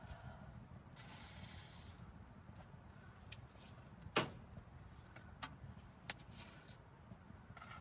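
Wood stove fire crackling with scattered sharp pops, two of them loud, about four and six seconds in, over a steady low rumble.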